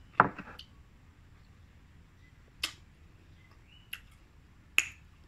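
Mouth sounds of someone eating a sour bilimbi (belimbing buluh) fruit: a sharp bite just after the start, then three more lip smacks or tongue clicks as she chews and tastes, the loudest being the first.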